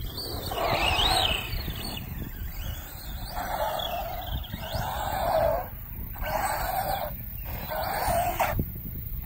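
Arrma Senton Mega RC short-course truck with a HobbyWing Max10 SCT brushless ESC and 3660 4000KV motor on 3S, driven in about five short throttle bursts. The motor and gears whine up and down in pitch with each burst, along with tyre noise on concrete.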